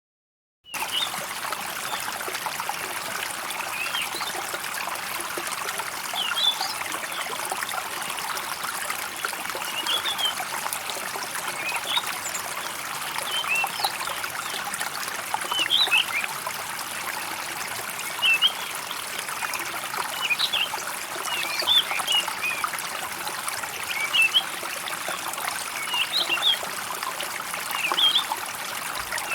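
A small stream trickling steadily, with short bird chirps every second or two. It starts suddenly just under a second in.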